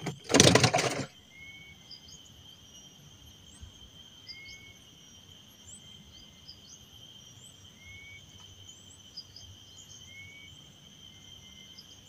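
A short loud noise about half a second in, as something is handled in the wooden boat. Then a steady high drone of insects, with a bird's short rising call repeating about every three seconds and scattered higher chirps.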